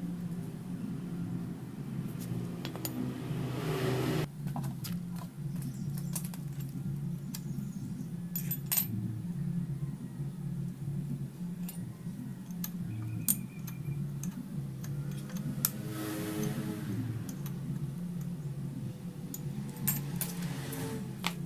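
Metal hand tools and engine parts clicking and clinking now and then, during the dismantling of a motorcycle cylinder head. Under them runs a steady low hum, with two short swells of rushing noise.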